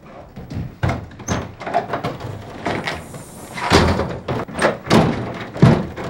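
A door opening and closing, with a run of knocks and thumps as someone comes in. The loudest thumps come in the second half.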